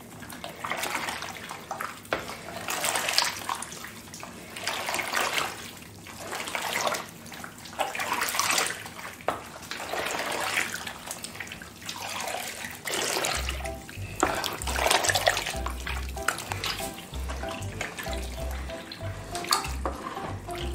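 Large wooden spoon stirring cheese curd slices through hot water in a plastic bowl, the water sloshing in repeated swishes about once a second as the curd melts and binds together. About two-thirds of the way in, background music with a low beat comes in under the stirring.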